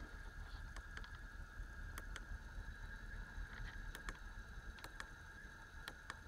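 Faint, sharp clicks of a motorcycle's handlebar switch, some in quick pairs, as the dashboard display is paged with the ignition on and the engine not running. A steady faint high whine and a low hum sit beneath them.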